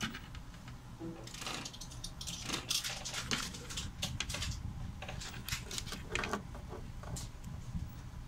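Handling noise from a Happymodel Mobula7 micro quadcopter: irregular clicks and rustles as it is turned in the hands and its battery lead is plugged into the connector near the end, over a steady low hum.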